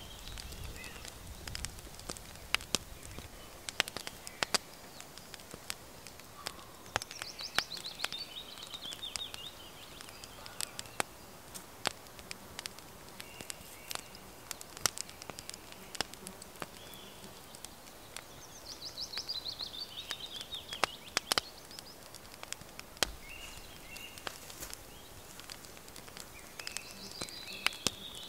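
Small wood fire crackling in a twig stove, with sharp pops scattered throughout, while a songbird sings a short descending trill three times.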